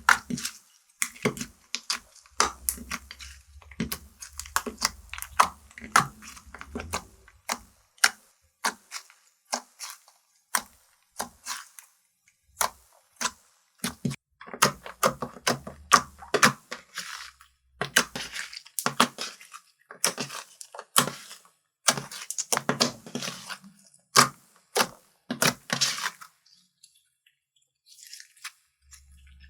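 Slime being squished and worked by hand, giving a quick run of sharp pops and crackles that stops a few seconds before the end.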